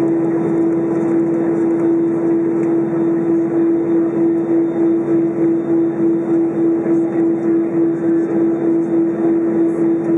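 Airbus A320 engines at low power as heard in the cabin over the wing while taxiing: a steady hum with one strong droning tone that pulses in a regular beat, about three times a second.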